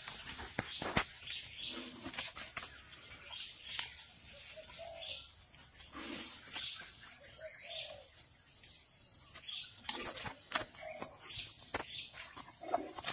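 Jungle birds chirping in short scattered calls over a steady high insect hum, with sharp snaps and rustles of leaves and twigs as an Asian elephant handles foliage at close range.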